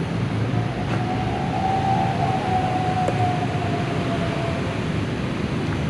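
Steady rumble of road traffic, with a faint steady whine through the middle few seconds.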